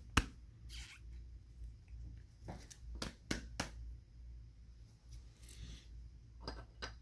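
Trading cards in plastic sleeves and top loaders being handled on a table: scattered light clicks and taps, a quick run of them about two and a half seconds in, and a faint swish of cards sliding.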